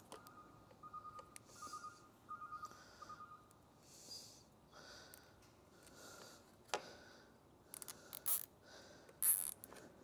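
Faint hand-work sounds as a float-switch cable is fastened to a PVC pipe: a run of small rapid clicks for a couple of seconds near the start, soft breaths through the nose, and a few sharp clicks later on.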